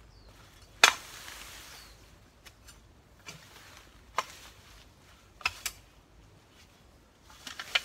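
Sharp strikes of a long-handled digging tool hitting the ground. The loudest comes about a second in, then a single blow, a quick pair, and a rapid cluster of smaller knocks near the end.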